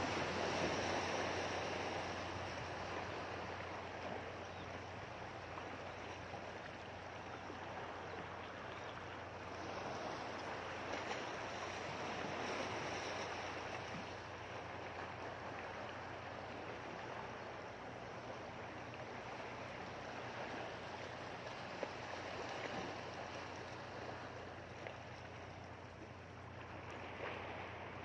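Sea water washing against shore rocks, a steady rushing that swells and eases, loudest at the start, in the middle and near the end.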